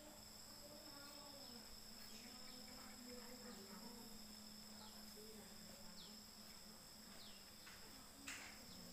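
Faint, steady high-pitched insect chirring, several held tones at once, over a low steady hum, with one short knock near the end.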